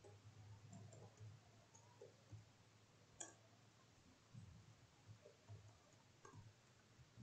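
Near silence with faint, scattered computer keyboard key clicks, one a little sharper about three seconds in, over a low hum.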